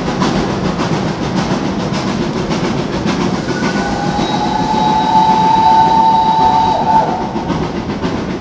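Steam locomotive approaching unseen, working with a steady rumble, and sounding its whistle in one long blast of about three and a half seconds, starting roughly three seconds in.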